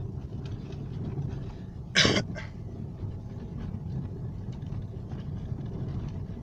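Steady cabin rumble of a Lada Vesta driving on a rough road, with one short, loud cough-like burst about two seconds in.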